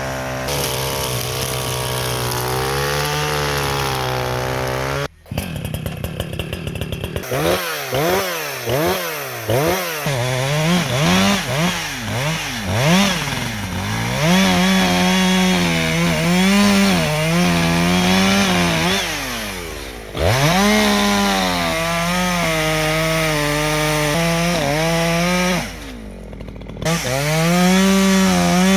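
Echo CS-620P two-stroke chainsaw running at a steady lower speed, then cutting off sharply about five seconds in. After that it revs up and down quickly several times, then is held at high revs with repeated dips in pitch as it works into the wood. Near the end the revs fall off briefly and climb again.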